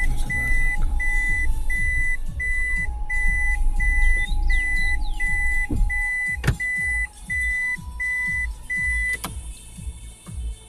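Car's electronic warning chime beeping steadily at one high pitch, about two beeps a second, over the low rumble of the cabin. The beeping stops about nine seconds in, and a sharp knock comes about six and a half seconds in.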